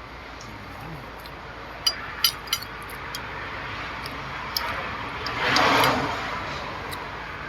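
A metal spoon clinks against a plate three times in quick succession about two seconds in, over steady background hum. Near the end a louder rushing noise swells and fades over about a second.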